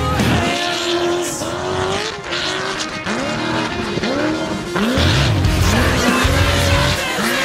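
Off-road race truck engines revving hard, the pitch sweeping sharply upward again and again, over a low rumble.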